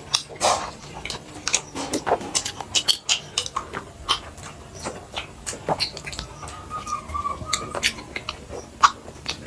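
Close-up eating sounds: chewing, lip smacks and flatbread being torn by hand, heard as many short, irregular clicks and smacks.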